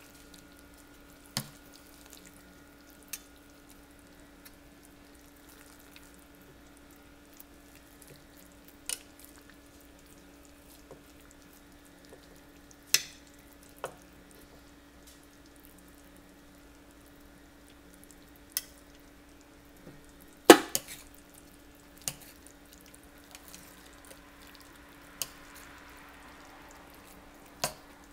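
Utensils clicking and knocking against a Ninja cooker's pot while cooked pork is pulled apart and deboned, with soft wet handling of the meat in its juices. Scattered sharp clicks, the loudest about two-thirds of the way through, over a faint steady hum.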